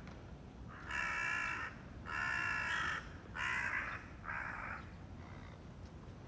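A crow cawing: four long caws close together, followed by a fainter short one.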